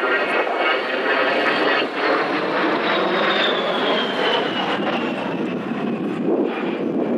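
A US Air Force A-10 Thunderbolt II's twin TF34 turbofan engines heard in flight: loud, steady jet noise with a high whine that slides down in pitch as the jet passes by.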